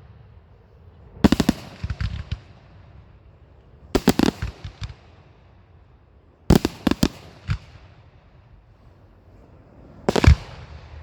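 Fireworks going off in four quick clusters of sharp bangs, a few seconds apart, with the last cluster the loudest.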